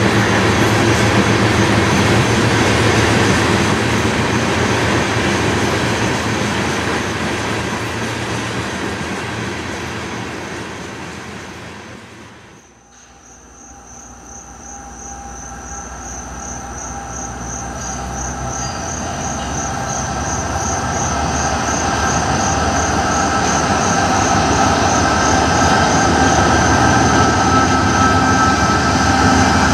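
Freight train rolling past and slowly fading away. After a break about thirteen seconds in, another freight train approaching and growing steadily louder, with steady high-pitched tones over the rumble of locomotives and wheels.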